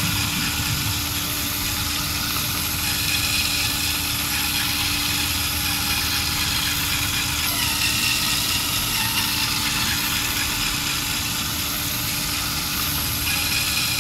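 A LEGO Technic electric motor and its gear train running steadily, driving the toy truck as it tows a trailer car across soapy glass.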